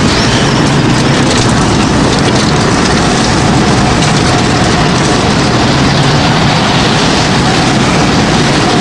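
Strong tornado heard from inside it, as a sound effect: a loud, steady rush of wind noise with a deep rumble underneath.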